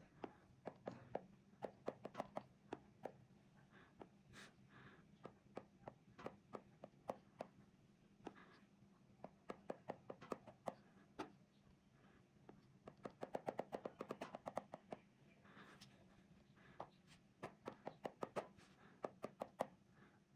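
Stylus tip tapping on a tablet's glass screen: sharp, irregular clicks, with a quick run of taps about two-thirds of the way through, as areas of a colouring app are filled one tap at a time.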